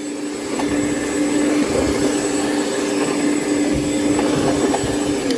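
Bosch ARM 3200 1200 W electric rotary mower running with a steady hum, its blade spinning over long grass without cutting it, a fault its owner is complaining about. The motor cuts out near the end and begins to wind down.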